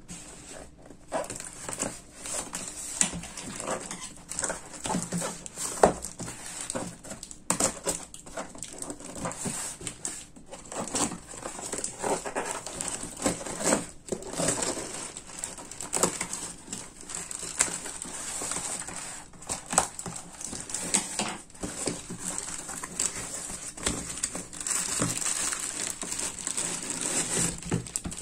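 Cardboard shipping carton being handled and opened: scissors cutting and scraping through packing tape, with irregular rustling, scraping and clicking of cardboard. Near the end a plastic bag crinkles as the wrapped case inside is lifted out.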